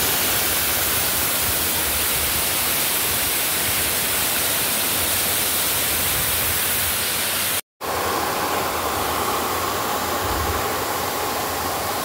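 Waterfall pouring onto rocks close by: a loud, steady rush of water. It cuts out for a moment about two-thirds of the way through, then the rushing carries on.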